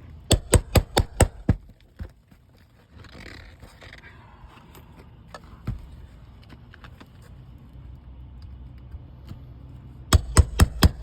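Hammer blows on a metal roof snake (shingle nail-removal tool) driven under an asphalt shingle to free its nails. There is a quick run of about six sharp metallic strikes at the start, then a quieter stretch, then another run of about five strikes near the end.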